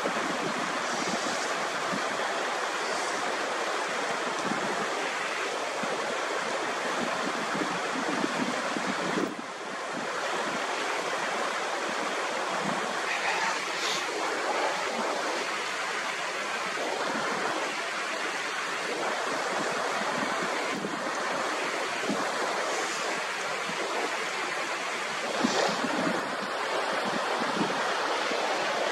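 Steady rush of a fast, partly iced-over Himalayan mountain stream running over rocks.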